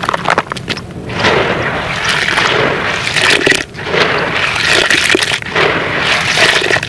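Gritty sand-cement chunks being crumbled and worked in water, a dense crackling and fizzing with sharp crisp clicks. It comes in long stretches, broken briefly about halfway through and again near the end.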